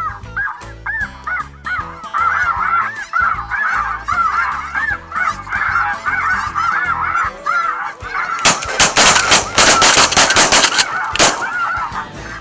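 A large flock of snow geese calling continuously in overlapping high yelps. Near the end a rapid volley of shotgun fire from several guns breaks out for about three seconds, louder than the geese, and then the calling carries on.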